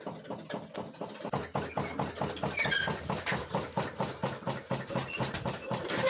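Diaphragm-piston hot-air Stirling engine running with a fast, even puffing beat, the air leaking out through internal leaks with each stroke; it gets louder about a second in. Short high squeaks sound over it a few times.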